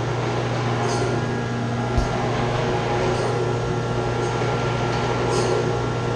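Chiller's chilled-water pump and motor running loudly: a steady low hum under a broad mechanical rush, with a single knock about two seconds in. The pump is shaking, which the technician puts down to a clogged suction strainer that needs cleaning out.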